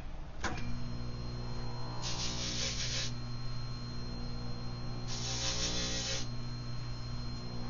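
A small electric motor switches on with a click and runs with a steady hum. Two hissing bursts about a second long come over it, about two and five seconds in.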